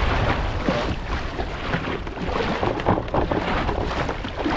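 Wind buffeting the microphone over the wash of a choppy sea around a small boat.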